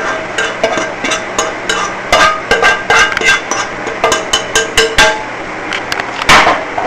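A metal utensil clinking and scraping against cookware: a quick, uneven run of sharp knocks with short ringing tones, then a louder scrape about six seconds in. This is the melted butter and chives being poured and spooned out onto the fish fillets.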